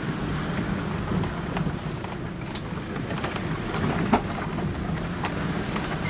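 Inside the cabin of a 2007 Honda Pilot crawling slowly over a rocky dirt trail: a low engine hum, with tyres crunching over stones and scattered clicks, knocks and rattles. One sharp knock comes about four seconds in.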